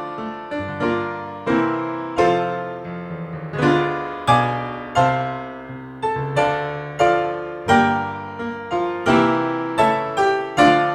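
Background piano music: a solo piano playing a lively tune, its notes and chords struck and left to ring.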